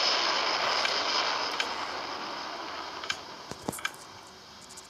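Airplane engine noise, a steady hiss, fading out gradually, with a few small clicks near the end.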